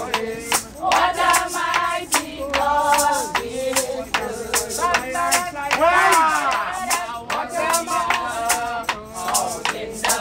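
A group of voices singing a hymn, with steady hand clapping in time.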